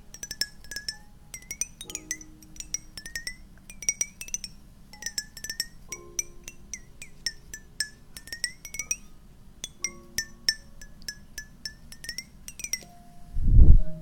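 A cola container tapped in quick clusters of light taps, each with a bright ringing note over a lower note that slides up or down in pitch. Near the end come two loud, low thuds.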